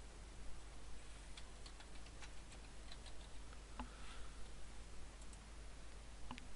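Faint computer keyboard typing and mouse clicks: a scatter of light, irregular clicks.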